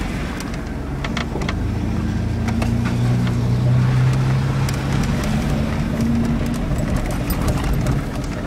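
Holden VN Commodore engine running under load, its note rising and falling gently, over a steady rumble, with scattered short knocks and rattles as the car is driven across rough paddock ground.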